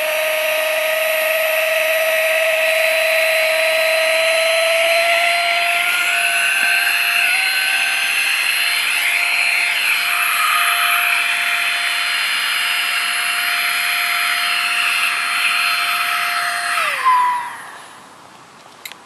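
Small electric air pump running with a steady whine as it inflates a sleeping pad, its pitch creeping up slightly as the pad fills. It is switched off near the end and winds down with a falling pitch.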